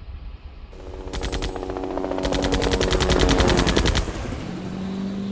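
Rapid machine-gun fire in two bursts: a short one about a second in, then a longer one that stops abruptly near four seconds, over a steady hum.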